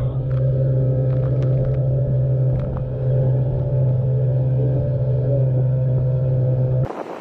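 Outboard motor of an inflatable raiding boat running steadily at speed: a strong, even low drone with a few sharp taps of water over it. About seven seconds in it gives way suddenly to wind and surf noise.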